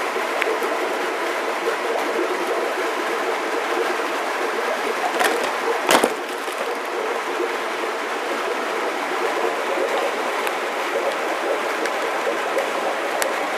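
Steady rushing of water, with a couple of sharp clicks about five and six seconds in.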